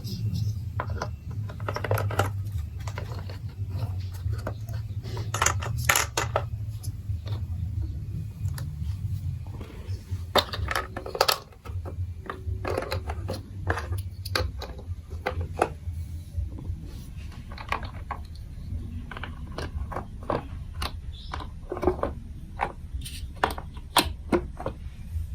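Irregular sharp clicks and clacks of a plastic marble run building block toy being handled, over a low steady hum.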